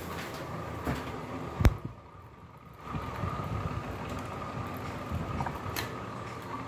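Ceiling fan running with a steady hum and a thin, even whine, with one sharp click about a second and a half in and a few smaller knocks.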